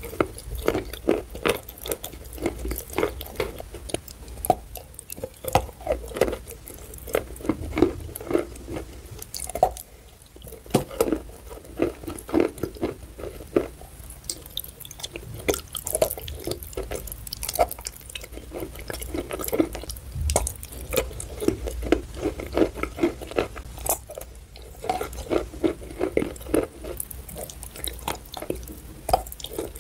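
Close-up wet chewing and biting of paste-coated chalk: soft crunches and squishy, sticky mouth sounds in quick succession, with a couple of short pauses.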